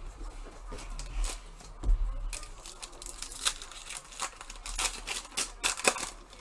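Hockey trading cards being handled and slid across one another: a run of irregular soft rustles and flicks, coming more often in the second half.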